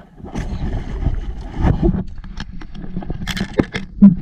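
Close handling noise: fish and longline being shifted about in a plastic fish crate, with irregular rustling, scraping and knocks. A single hard knock about four seconds in is the loudest sound.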